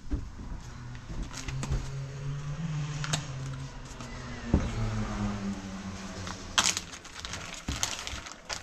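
Hands handling a plastic zip bag and opening a small bottle of hemp oil: a sharp click of the bottle cap about four and a half seconds in, with loud plastic crinkling at about six and a half seconds and again near the end. A low steady hum runs under it.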